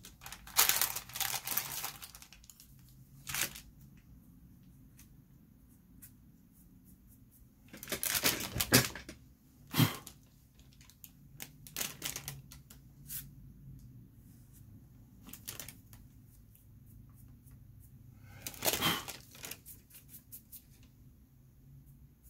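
Dry, scratchy rustling of soft pastel work on paper, from brushing and stroking the sheet, in several short clusters, with one sharp knock near the middle.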